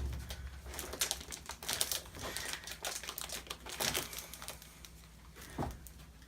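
Scattered light crinkling and irregular tapping from the fiberglass part and its mold being handled and pressed back together, with a few sharper taps spread through.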